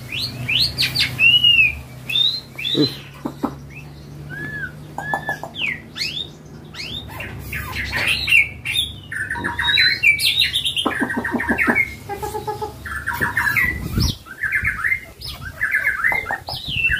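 Caged songbirds calling and singing in a busy, overlapping mix of slurred whistled notes, chirps and quick rattling phrases. A low hum runs under the first half.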